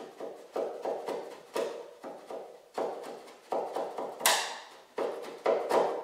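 Hand chisel paring into the cedar strips at a canoe's stem: a string of short, uneven scraping cuts, with one sharper, louder crack about four seconds in.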